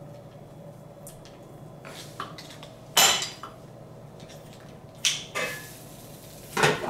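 Kitchen scissors snipping raw meat held in tongs over a pan, with sharp metal clatters of utensils and cookware: the loudest about three seconds in, another around five seconds, and one at the end.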